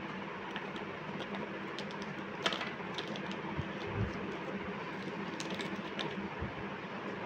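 A few scattered light clicks and taps of oil pastel sticks being handled in a plastic pastel case, over a steady background hiss.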